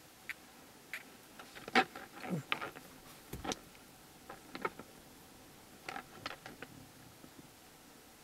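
Scattered sharp clicks and knocks, in small clusters about two seconds in and again about six seconds in, with one duller, deeper thump in between.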